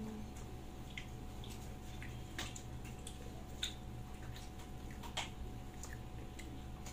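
Quiet eating sounds during a chicken congee meal: a few scattered soft clicks and small wet noises over a low steady hum.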